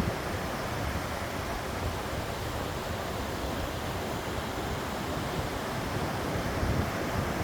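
Mountain stream water rushing in a steady, unbroken roar.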